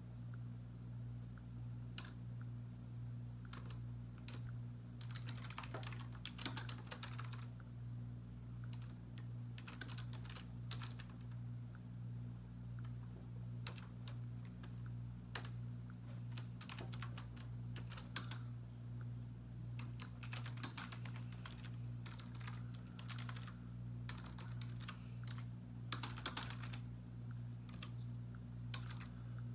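Typing on a computer keyboard: scattered bursts of key clicks over a steady low hum.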